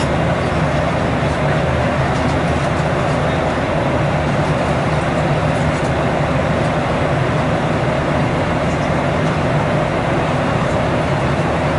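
Steady airliner cabin noise of a Boeing 737-800 in cruise: the even rush of air along the fuselage with the low hum of the jet engines beneath it.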